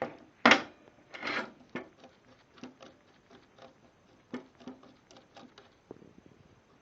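A small hand clamp and a workpiece being handled: a sharp knock, a short scrape, then a series of light irregular clicks and taps as the clamp is repositioned.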